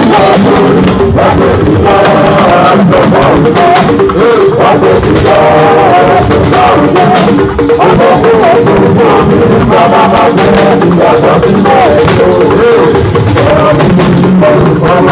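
Loud music with singing over drums and percussion.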